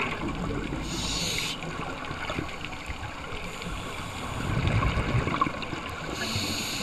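Scuba breathing heard underwater through a camera housing: a constant watery rumble of exhaled bubbles, with two short hisses of the regulator, about a second in and near the end.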